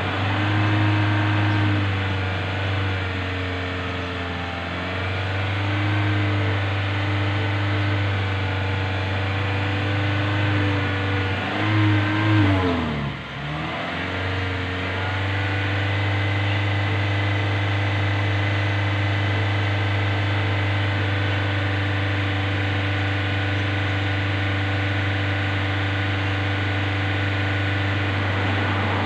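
Toyota Innova's engine running at raised, held revs, heard at the exhaust; the pitch wavers for the first half, drops briefly and climbs back about halfway, then holds steady. The engine is being run up during an exhaust carbon-cleaning (decarbonising) treatment to purge carbon and smoke.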